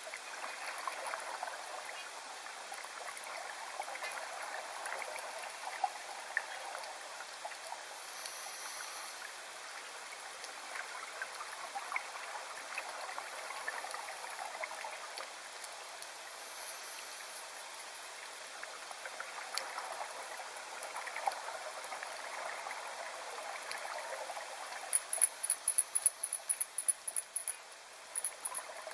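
Steady trickle of running water. A quick run of sharp, high clicks comes in near the end.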